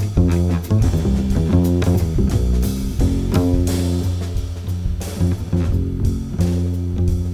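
Background music: a guitar-led instrumental with a bass line and drums.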